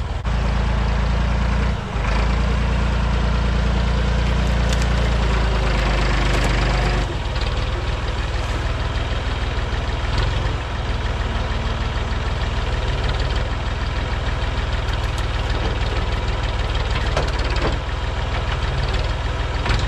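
Massey Ferguson loader tractor's engine running, louder and heavier for the first seven seconds, then easing back to a lower steady run.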